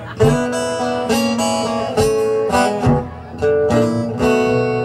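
Two acoustic guitars and an electric bass playing the instrumental opening of a slow blues number, with chords struck about once a second over a bass line.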